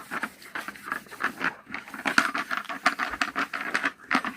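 Young chickens pecking and scratching at feed and litter: a rapid, irregular pattering of many small taps and scratches.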